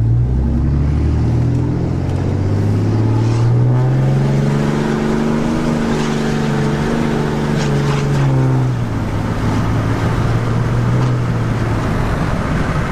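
A 6.7-litre Cummins turbo-diesel straight-six in a Ram 2500 pulling under acceleration. Its pitch climbs over the first few seconds and holds, then drops away about eight to nine seconds in and settles to a steady run.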